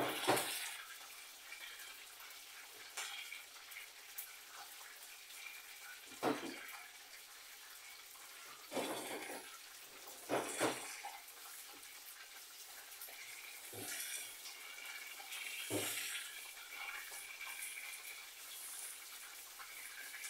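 A steady hiss in a kitchen, with pots and utensils clattering about six times: once at the start, then at about 6, 9, 10, 14 and 16 seconds.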